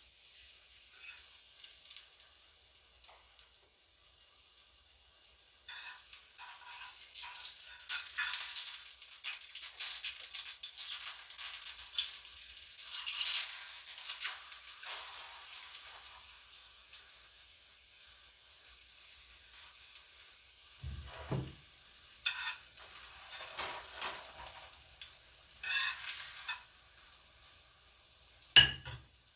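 Banana pancake batter sizzling as it fries in a pan, the crackling swelling louder for a while in the first half. Two short knocks in the second half, the louder one just before the end.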